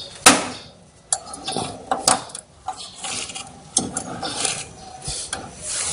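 Hands handling the power-supply cables and plastic connectors inside a desktop computer's metal case: a string of sharp clicks and knocks, the loudest about a third of a second in, with rubbing and rustling of wires between them.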